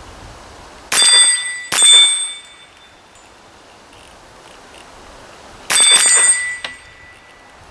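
Four shots from a GSG STG44 .22LR rifle, in two quick pairs about five seconds apart. Each shot is followed by the bell-like ring of a hit steel target fading over about half a second.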